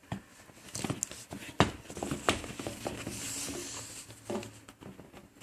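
Handling noise: a series of irregular light knocks and taps, most likely from a pair of sneakers being handled and turned over.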